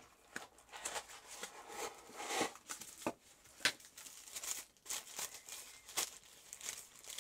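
Unboxing handling noises: cardboard box flaps and the dock's thin protective wrap rustling and crinkling as it is lifted out and peeled off, in short faint bursts with a few small knocks.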